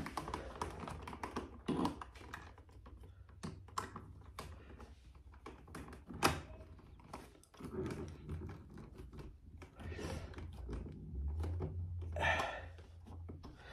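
Phillips screwdriver turning a long mounting screw through a light switch's yoke and a plastic box extender into the electrical box: irregular small clicks and scrapes of metal and plastic, with one louder click about six seconds in.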